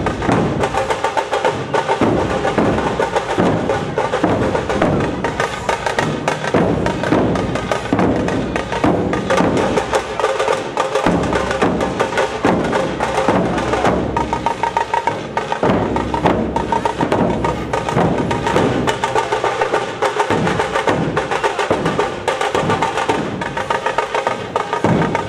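Dhol-tasha troupe drumming: large barrel-shaped dhol drums beaten with sticks together with small tasha drums, in a fast, dense, unbroken rhythm of sharp stick strokes over deep drum beats.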